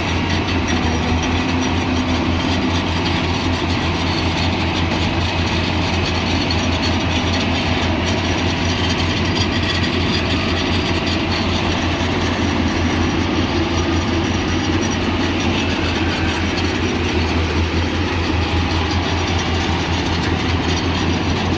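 Yanmar AW70GV combine harvester's diesel engine running steadily, with a fast, even rattle over its low drone.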